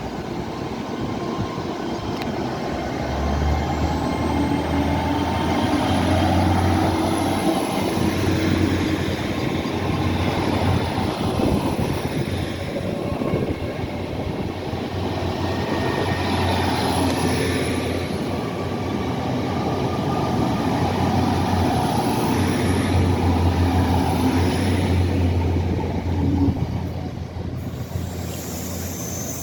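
A train running at a station, with a steady low drone and rail noise, and a high whine that rises a few seconds in and then holds.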